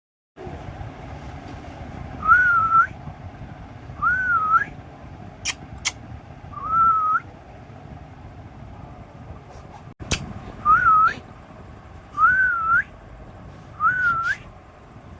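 Cat giving six high, thin, whistle-like meows, each about half a second long with a wavering pitch that rises at the end, repeated every couple of seconds. A few sharp clicks sound between them.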